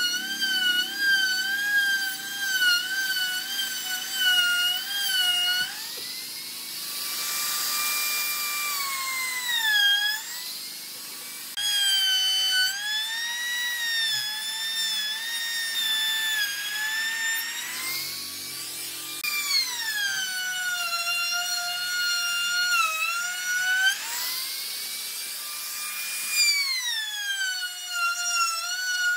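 Handheld trim router running, trimming the edge of a wooden tabletop. Its loud whine wavers and dips, and climbs in pitch several times before settling lower again.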